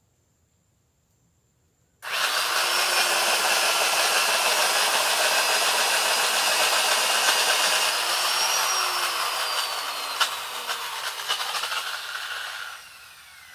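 A 1970s electric drill starts abruptly about two seconds in and runs steadily, boring into hard braúna wood, then winds down near the end.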